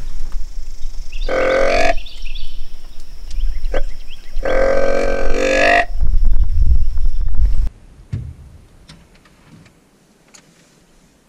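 Two drawn-out, bleat-like calls, a short one and then a longer one, each rising a little at the end, over a low rumble that cuts off suddenly a couple of seconds later.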